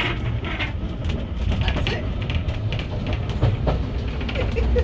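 Heritage railway coach running along the line: a steady low rumble of wheels on rail, with irregular clicks and rattles from the carriage.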